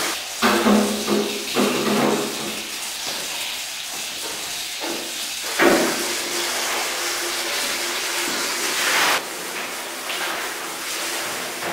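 Tap water running steadily into a sink, with louder splashes and knocks in the first two seconds, about halfway through and near the end as a ribbed black plastic item is handled and scrubbed under it.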